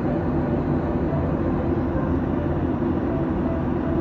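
Steady low rumble inside a moving passenger vehicle's cabin, even throughout with no distinct events.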